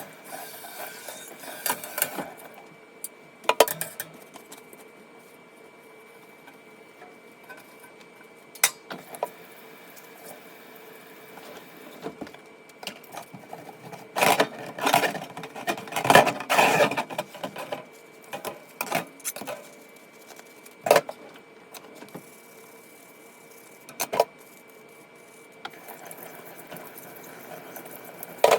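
Household cleaning and tidying noises: scattered clicks and knocks of objects being picked up and set down, with a busier stretch of clattering and rubbing about halfway through.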